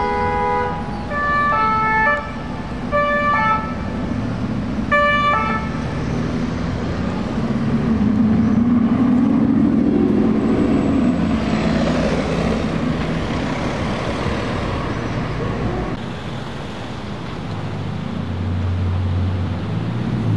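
A vehicle horn sounds four short blasts at shifting pitches over the first six seconds. Then a Bugatti Chiron's quad-turbo W16 engine accelerates past, loudest about ten seconds in, and a low, steady engine note comes up near the end as another Chiron pulls out.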